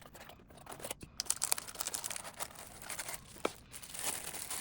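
Watch packaging being torn open and crinkled by hand: a dense crackle of rustling and ripping that starts about a second in, with a few sharper snaps.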